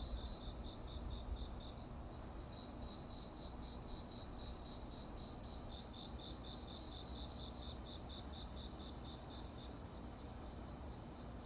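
Crickets chirping in an even, repeating rhythm of short high chirps, about three a second, with more than one insect at slightly different pitches, over a faint steady low city hum.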